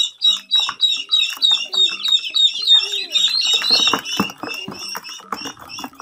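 A group of ducklings peeping, a rapid run of shrill, down-slurred cheeps several a second that thins out in the second half. Water splashes and light knocks are mixed in during the second half.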